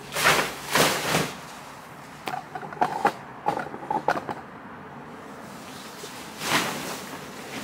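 Waterproof mattress protector rustling as it is handled and spread over a mattress: two swishes in the first second or so and another near the end, with small clicks and taps in between.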